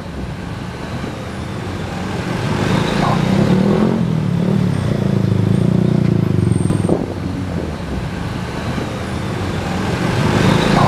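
Busy road traffic passing close by: motor scooters, cars and trucks with their engines running. The sound swells loudest from about three to seven seconds in and again near the end.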